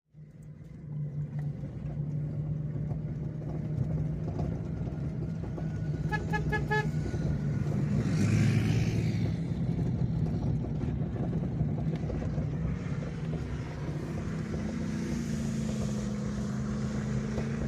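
Off-road truck's engine running steadily while driving on mud flats, heard from inside the cab, swelling louder about eight seconds in. A quick run of short horn toots sounds about six seconds in.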